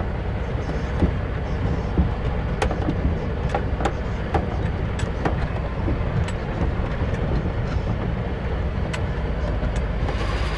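Heavy goods vehicle's engine running steadily, heard from inside the cab, with scattered sharp clicks and knocks from the cab and its load of rattling fittings.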